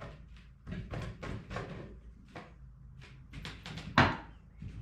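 A plexiglass panel being fitted into a wooden bird feeder: a run of light clicks and knocks, then one loud sharp knock about four seconds in.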